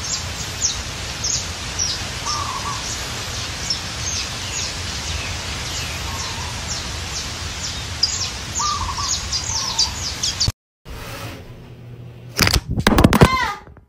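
Morning birds chirping: many quick, high, down-slurred chirps repeating over a steady background hiss, with an occasional lower call. The birdsong cuts off abruptly about ten and a half seconds in. Near the end comes a short, loud sound with a wavering pitch.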